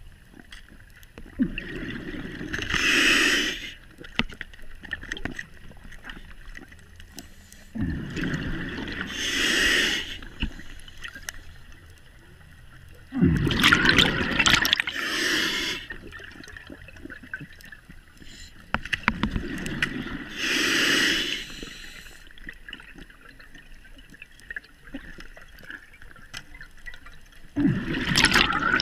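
Scuba diver breathing through a regulator underwater: about five breaths, each a low rumble of exhaled bubbles and a hiss of air through the regulator, coming every five to six seconds.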